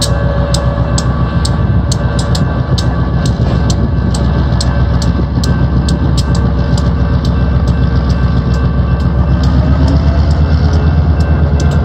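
Railroad grade-crossing bell ringing in rapid, evenly spaced strikes, about three or four a second, over the steady rumble of a diesel switcher locomotive's engine as it moves slowly through the crossing with a string of freight cars.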